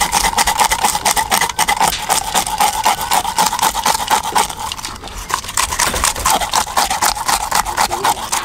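Handheld plastic scale-collecting fish scaler scraped in rapid back-and-forth strokes along the side of a large bass, rasping the scales off. The strokes ease off briefly about five seconds in, then pick up again.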